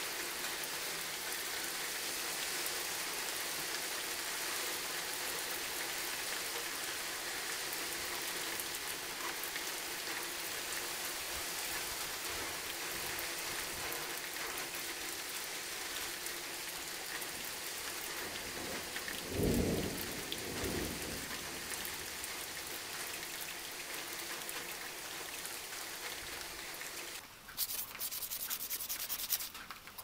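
A steady, even hiss most of the way through, with one louder low thump about two-thirds in. Near the end, sandpaper rubs back and forth in quick strokes on a metal strip from an old table fan.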